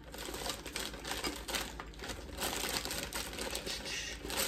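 Plastic bag of berries crinkling as it is shaken and tipped, with the berries dropping and clicking into a bowl on a kitchen scale in a quick, irregular patter.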